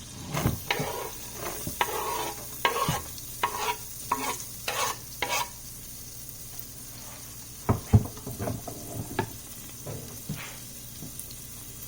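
Chopped garlic sizzling in melted butter in a large pot, with a steady hiss. A utensil stirs and knocks against the pot in irregular strokes through the first five seconds, and again briefly about eight seconds in.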